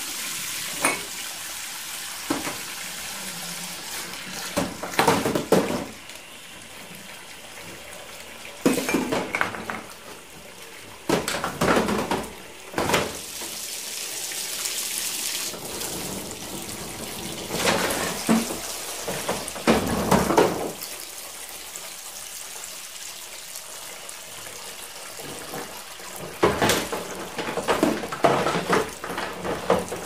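Washing up at a sink: tap water running steadily, with dishes and cutlery clinking and clattering in repeated bursts of a second or two.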